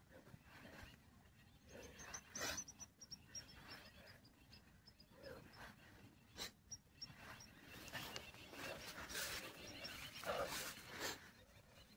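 Faint, irregular breaths of someone exerting, with quick runs of short high chirps about two seconds in and again later.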